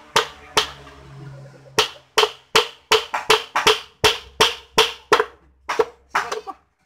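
A run of sharp knocks, each with a short ringing tone: two near the start, a pause of about a second, then a steady series at about two to three knocks a second.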